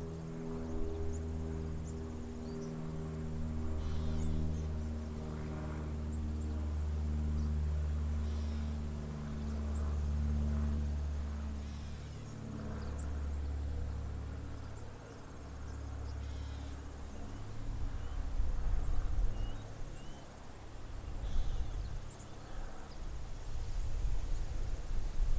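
Slow, sustained low music notes that fade out over the first half, with faint high chirps from a large flock of swallows throughout. A low rumble builds near the end.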